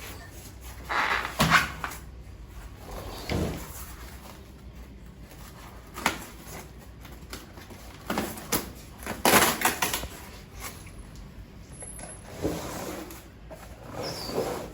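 Irregular scrapes, knocks and rustles of a large cardboard box and its packing being handled and pulled open to unpack a mirror, in about seven separate bursts, the loudest about two-thirds of the way through.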